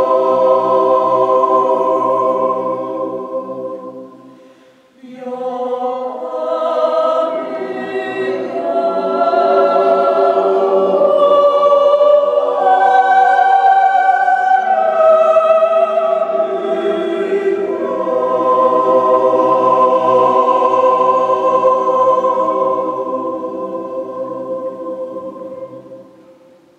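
Mixed Swiss yodel choir singing a yodel a cappella. A held chord fades about four seconds in, then a new phrase rises and settles on a long closing chord that dies away near the end.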